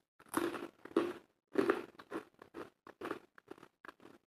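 Close-up crunchy chewing of a mouthful of food: a few loud crunches in the first two seconds, then softer, quicker chewing clicks about four a second.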